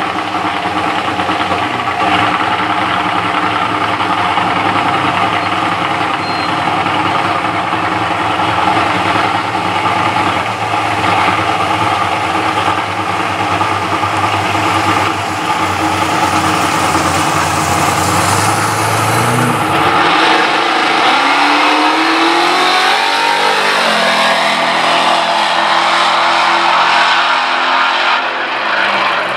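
Drag car's engine running loudly at the starting line for about twenty seconds, then launching and accelerating away down the strip, its pitch climbing in several rising sweeps.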